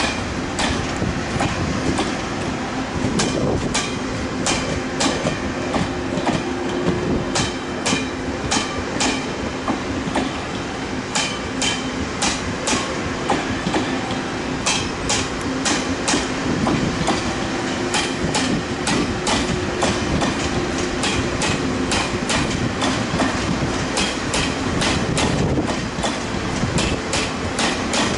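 TRA E1000 push-pull Tze-Chiang express coaches rolling past, the wheels clicking over rail joints and points in a steady clickety-clack over a continuous rolling rumble and a low steady hum.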